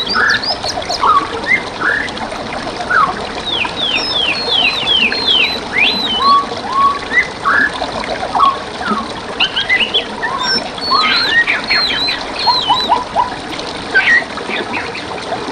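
Several songbirds singing and chirping over the steady trickle of running water: a dense, overlapping mix of whistles and chirps, with runs of quick falling notes.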